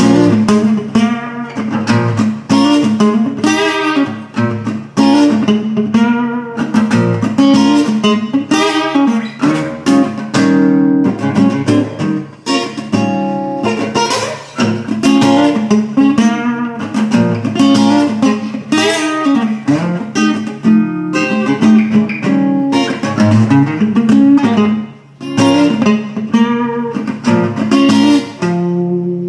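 Solo acoustic guitar played with no singing, strummed and picked notes following each other several times a second without a break.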